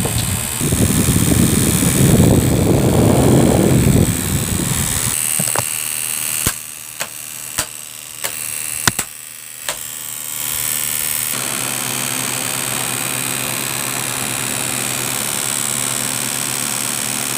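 Electric fan running, with a heavy rumble of air on the microphone for the first few seconds, then about half a dozen sharp knocks in the middle, then a steady motor hum with a high whoosh of air.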